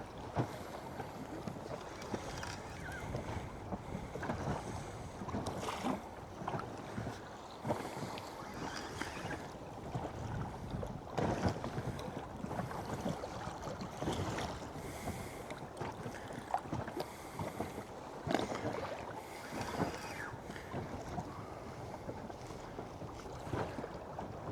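Water lapping against the hull of a small boat at anchor, with wind on the microphone and scattered short knocks and slaps.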